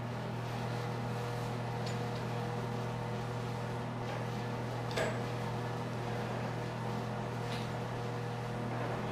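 A steady low hum, with a few faint clicks and creaks from a hand-cranked ring roller slowly bending steel flat bar into a coil of auger flighting. The sharpest click comes about five seconds in.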